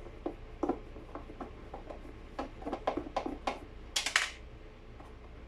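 Irregular light clicks and knocks of plastic vacuum-cleaner parts and a screwdriver being handled during disassembly, with a louder scrape about four seconds in.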